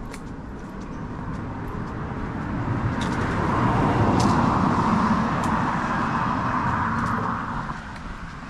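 A car passing by, growing louder to a peak about four seconds in and then fading away.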